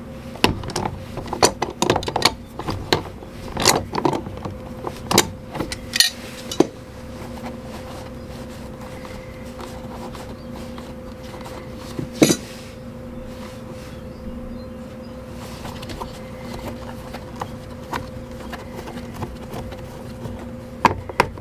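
Tongue-and-groove pliers clicking and clinking on the plastic water-line fitting of an RV toilet's water valve as the line is loosened, a quick run of sharp clicks over the first several seconds. Afterwards a steady low hum, with one sharp click about twelve seconds in and a few more near the end.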